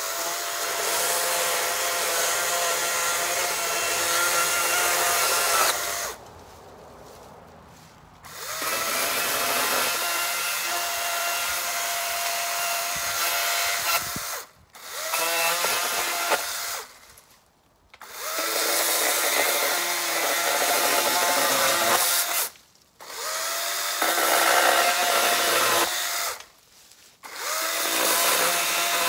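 Battery-powered electric chainsaw with a dull chain, cutting into a dry dead limb: a steady motor whine in about six runs of a few seconds each, with short pauses between.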